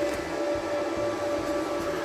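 AC TIG welding arc on aluminum buzzing steadily with a constant hum.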